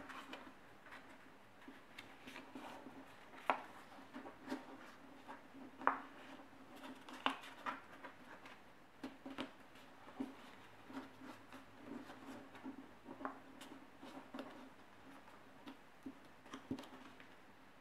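Paper being handled and folded by hand: irregular soft rustles and crinkles with a few sharper creasing clicks, over a faint steady hum.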